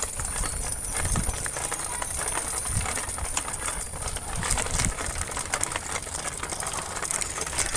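Bicycle rattling and clicking as it is ridden over rough ground, with irregular knocks over a low rumble.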